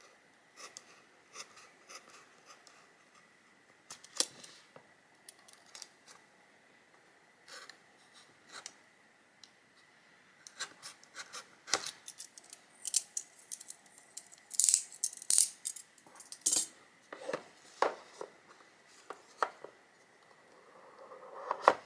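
Scattered clicks, taps and rustles of a boxed phone screen replacement kit being opened and its packaging and small parts handled, sparse at first and much busier in the second half.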